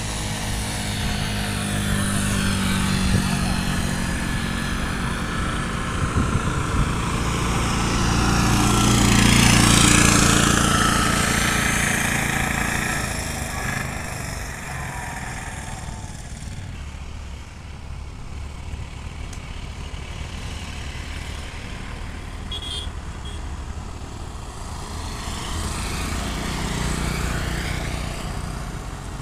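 Motor vehicles passing on a hill road: engine sound builds to a close pass about ten seconds in, then fades away. Near the end a motorcycle engine approaches and grows louder again.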